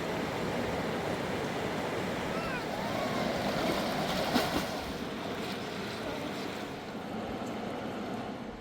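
A river rushing steadily, with one sharp tap about four and a half seconds in.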